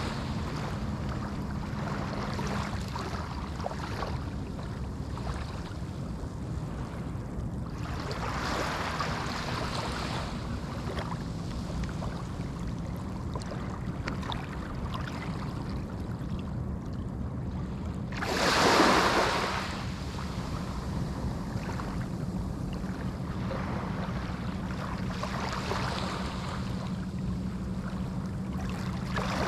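Small Atlantic waves breaking and washing up a sandy beach, a surge of surf every several seconds over a steady low rumble; one wave about two-thirds of the way through is clearly the loudest.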